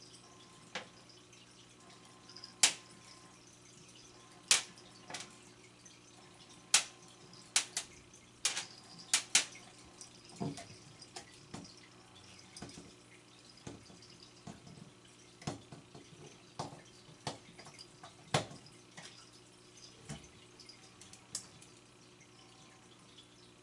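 Irregular sharp clicks and taps of a Wild Thing cat toy being batted about by cats on a tile floor, some clicks loud and some faint, over a steady low hum.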